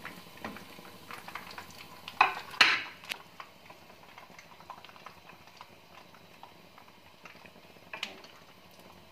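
Slotted metal spatula clinking and scraping against a frying pan and a glass plate as fried fish pieces are lifted out and set down, with a couple of louder knocks about two seconds in and another near the end. Ghee sizzles faintly in the pan underneath.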